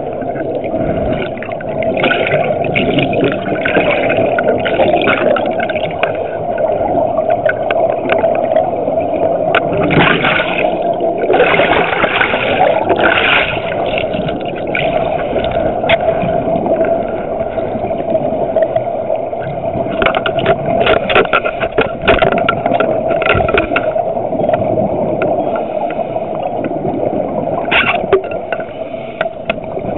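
Scuba regulator breathing underwater, heard through the camera housing: bubbling exhaust bursts come every several seconds over a steady hum.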